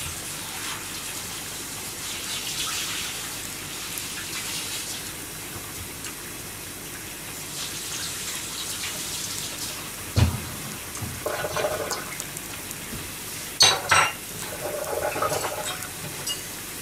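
Water running and splashing in a kitchen sink in spells, with sharp clinks of dishes and pans about ten seconds in and twice near fourteen seconds.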